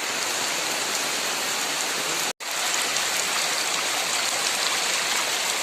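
Rushing water of a natural stream pool, a steady splashing hiss that breaks off for an instant about two seconds in.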